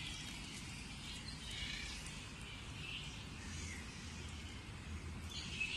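Faint, continuous high chatter of a fruit bat colony in the trees, over a low steady rumble.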